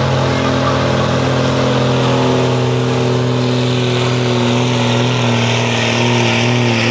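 A 5.9 Cummins diesel in a 1976 Chevrolet pickup runs loud and steady while the truck takes up the load of a pulling sled, its pitch slowly rising from about three seconds in. A thin, very high whistle climbs steadily above the engine.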